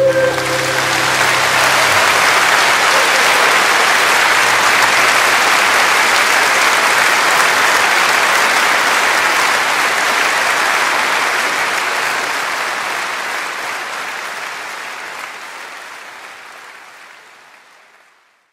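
Audience applauding a live song performance as the singer's final held note ends. The applause fades out gradually over the last several seconds.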